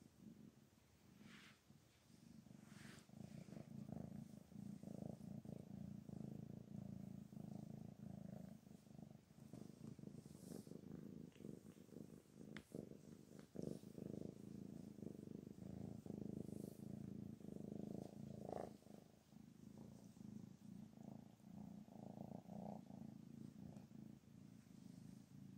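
Domestic cat purring steadily and softly, close up, while being stroked by hand, with a few faint rustles of the hand on fur.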